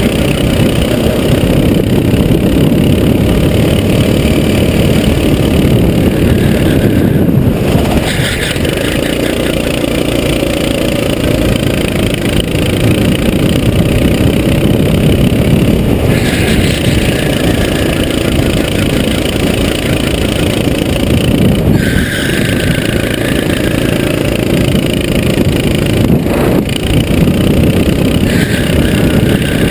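Sodi SR4 rental kart's four-stroke single-cylinder engine heard from on board at racing speed, running hard and briefly easing off and picking up again several times through the corners.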